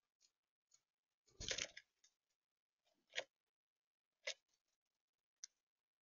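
Chickadee moving about a feeder's seed tray of sunflower seeds: scattered clicks and taps of its bill and feet on seeds and the plastic tray, with a louder thump and rustle about a second and a half in, then single sharp clicks about once a second.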